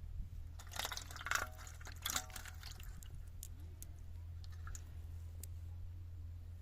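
Water splashing and dripping in two short bursts, about a second in and again about two seconds in, followed by a few light drips, over a steady low hum.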